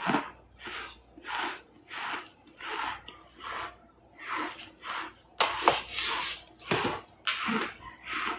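Chewing hard chunks of compressed cornstarch close to the microphone: a crunch about twice a second, with a louder, sharper crunch about five and a half seconds in.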